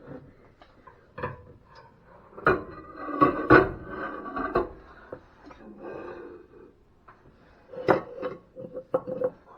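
Clinks and knocks of dishes being handled and set down on a counter, with a busier run of handling sounds about halfway through.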